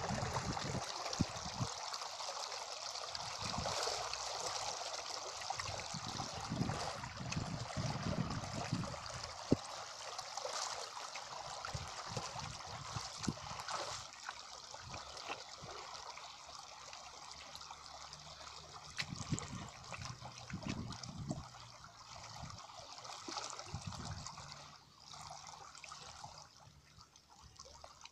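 Shallow water trickling and gurgling through a channel cut in a mud bank, growing fainter about halfway through, with occasional soft thuds of hands working the wet mud.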